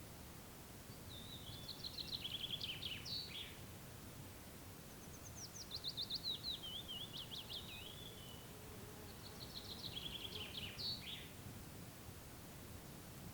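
A songbird singing three phrases of quick repeated notes, each about two to three seconds long and stepping downward in pitch, with pauses between them, over faint steady background noise.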